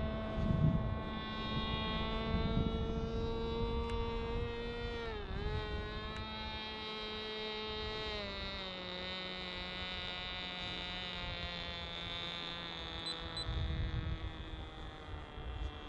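Small RC plane's motor and propeller running in flight, a steady buzzing whine whose pitch dips briefly about five seconds in and drops to a lower note at about eight seconds. Wind buffets the microphone near the start and near the end.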